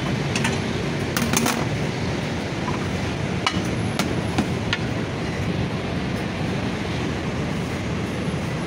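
Steady rumbling background noise of a busy food stall, with a few sharp clinks of metal serving plates and tongs as the kunafa is plated.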